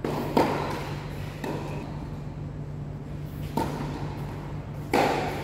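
Tennis ball struck by rackets and bouncing on the court during a doubles rally: four sharp pops spread irregularly over five seconds, the loudest near the start and near the end, over a steady low hum.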